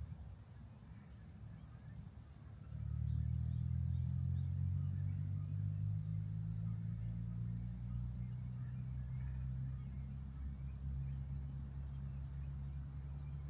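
Low, steady hum of a vehicle engine, getting louder about three seconds in and then holding.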